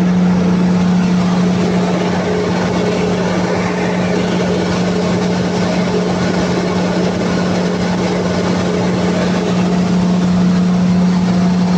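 Cummins QST30 V12 diesel engine of a 60 Hz generator set running steadily at speed, a loud even drone with no change in pitch.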